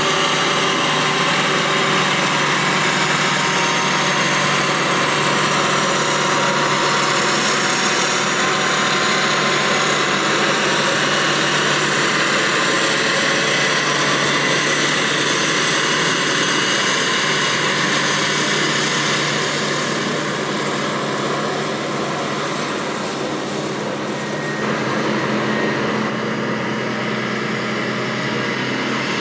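Terex TS-14B twin-engine scraper's two-stroke Detroit Diesel 4-71 engines running steadily as the machine works close by, the sound easing off about twenty seconds in as it moves away.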